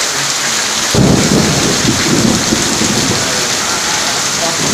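Steady rain hissing down. About a second in, a low rumble sets in suddenly and fades away over the next two or three seconds.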